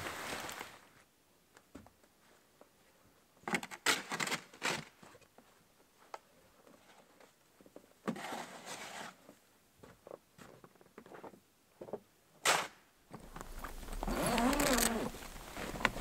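Scattered crunches and knocks of boots and gear moving on snow and a snowy wooden platform, with one sharp knock near the end. Then a longer rasping pull with a wavering pitch: a canvas bell tent's door zipper being opened.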